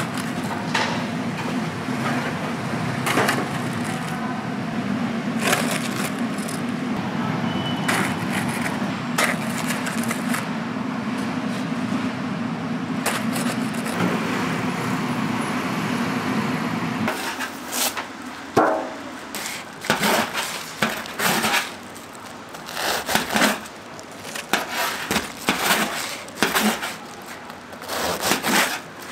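Steady low hum with scattered sharp clicks of metal tongs handling fried breaded bread croquettes. About 17 seconds in the hum drops away, and a run of sharp crunches and knocks follows as a knife cuts through the crisp breaded crust onto a steel counter.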